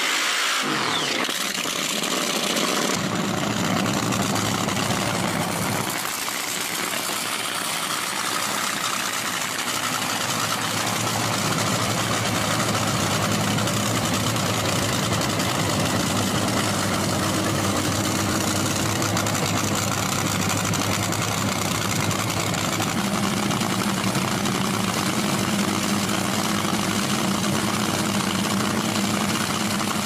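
Top Fuel dragster's supercharged nitromethane V8 running steadily, its note shifting about 3 and 6 seconds in.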